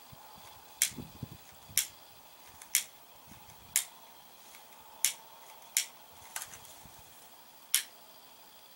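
Butane utility lighter's trigger clicked over and over, about eight sharp clicks spaced unevenly roughly once a second, as it is sparked again and again to get a flame going.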